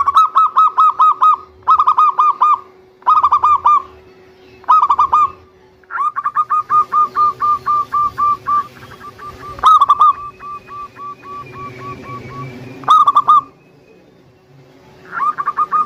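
Zebra dove (perkutut) singing: runs of rapid, clipped notes, first in four short bursts, then in a longer run of several notes a second that trails off, broken by two louder bursts.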